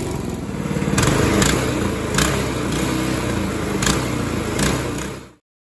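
Predator 224 single-cylinder four-stroke engine on a mini bike running steadily, with a few brief sharp ticks over it. The sound stops abruptly near the end.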